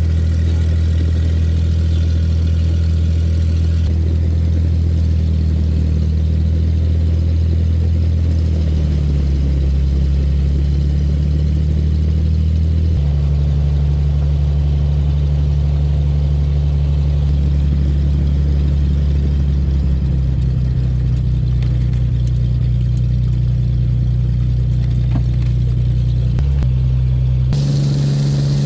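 Light aircraft's piston engine and propeller droning, heard inside the cabin, its pitch stepping to new settings a few times.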